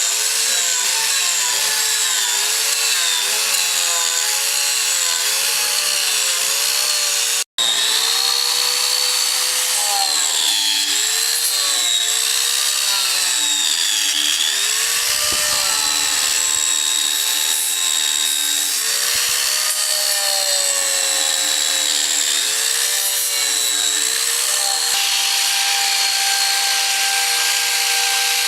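Electric power tool working wood, its motor whine wavering up and down in pitch as the load on the cutter changes. It cuts out for an instant about seven seconds in, and near the end the pitch holds steady.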